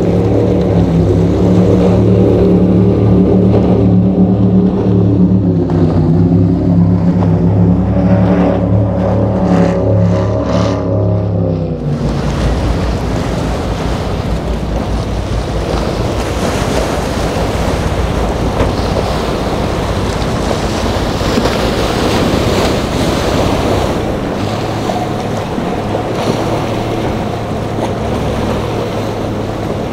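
Offshore performance powerboat's engines running with a steady deep drone. About twelve seconds in it cuts suddenly to the rush and splash of water from passing motor yachts' hulls and wakes, with wind buffeting the microphone.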